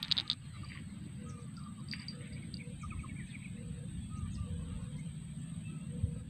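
Birds calling: a short low note repeating about every three-quarters of a second, with scattered higher chirps, over a steady low rumble. A small bite-alarm bell on the fishing rod tip jingles briefly right at the start.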